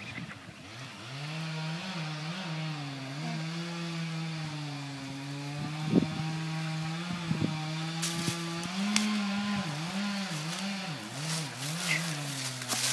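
Chainsaw running at high speed with a steady pitch that dips and recovers several times, with a couple of sharp knocks in the middle.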